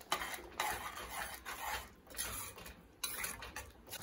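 Metal ladle stirring a thick curry in a metal pot, scraping and clinking against the pot in about five separate strokes as jaggery is stirred in.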